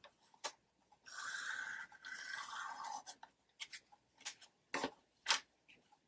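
Sliding-blade paper trimmer: the cutter head is drawn along its rail, slicing through paper for about two seconds with a short break midway, followed by a few light clicks and taps as the paper is handled.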